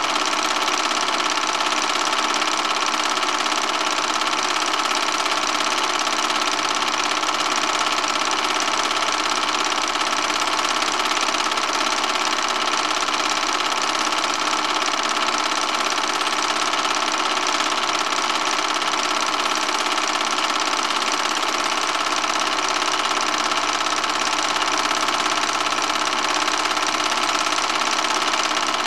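Film projector running steadily: an even mechanical whir with a constant high whine and no change throughout.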